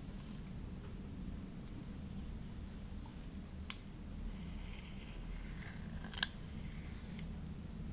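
Hair being combed or brushed close to the microphone: soft high rustling strokes with two short sharp clicks, the louder one about six seconds in, over a steady low hum.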